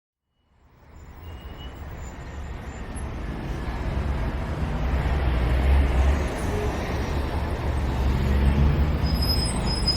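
Low rumbling of a large vehicle, fading in from silence about half a second in and growing louder over several seconds, with a faint high squeal near the end.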